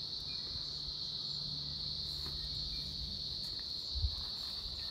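Chorus of many cicadas buzzing in one steady, unbroken high-pitched drone, with a soft low bump about four seconds in.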